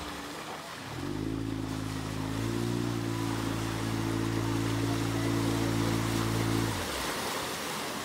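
Parsun SeaKing 15 outboard motor running under way on an inflatable boat. Its note comes in about a second in, rises slightly, holds steady, then stops abruptly near the end, leaving only a rushing hiss of water and wind.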